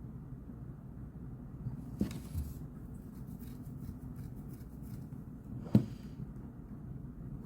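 A person writing at a desk: faint scratching of a pen on paper and two sharp knocks, about two seconds in and near the end, the second louder, over a steady low room hum.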